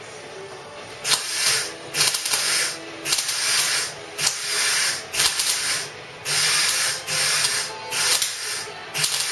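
MIG welder laying weld on car-body sheet steel, fired in a run of short crackling bursts, each under a second with brief pauses between, starting about a second in. The pulsing lets the weld pool cool between bursts while the relief holes are filled, so it doesn't blow holes through the metal.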